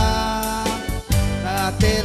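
Live pop band music: held melody notes over a steady bass line, with sharp drum hits on the beat.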